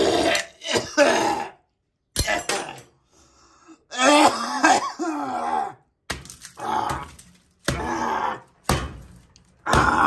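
A hand repeatedly slaps and smashes spilled rice and egg on a countertop, mixed with a person's wordless vocal noises.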